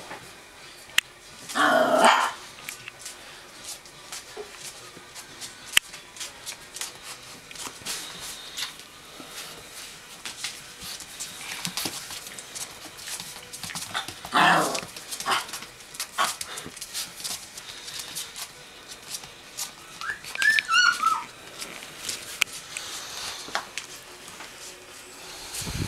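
Young Presa Canario puppies yapping and whining: a short yelp about two seconds in, another about fourteen seconds in, and a run of high squeaky whimpers that rise and fall around twenty seconds in, with light clicks and scuffles in between.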